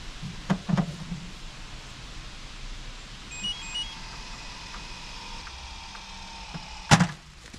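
Automatic dog ball launcher: two knocks in the first second, a short run of electronic beeps about three and a half seconds in, then its motor whining steadily for about three seconds before a loud thump near the end as it fires the ball.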